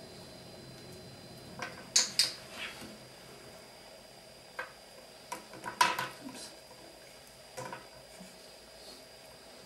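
Scattered sharp clicks and light clatters of small hard plastic figures being handled and set down on a wooden tabletop. The loudest is a pair of clicks about two seconds in, with more clatter around the middle.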